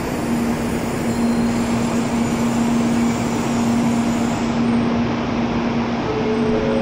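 N700A Shinkansen train rolling slowly alongside the platform as it comes to a stop, a steady rumble with a constant low hum. A few higher steady tones come in near the end.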